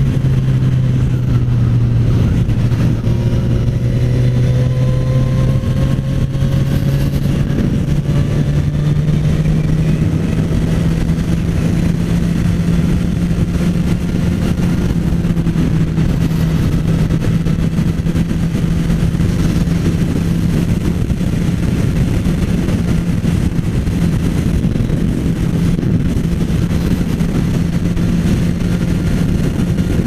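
Suzuki GSX-S1000's four-cylinder engine pulling steadily under way with a deep note. Its pitch rises slowly between about four and ten seconds in as the bike gathers speed, then holds steady, over a rush of wind noise.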